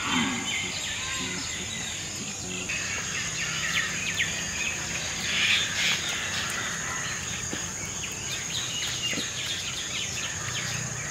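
Outdoor ambience: birds chirping and calling over a steady, high-pitched insect drone.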